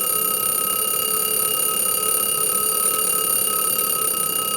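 The alarm of a vintage Jaeger-LeCoultre Recital alarm clock going off, a loud, continuous ring that holds steady in pitch and level throughout.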